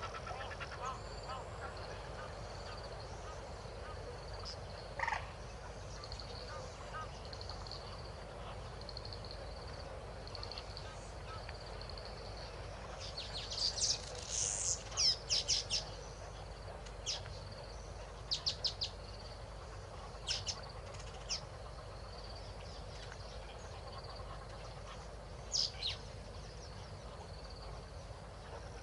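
Wild birds calling: clusters of sharp, high, rapid calls about halfway through, several shorter ones over the next few seconds and a pair near the end, over a faint steady high hum.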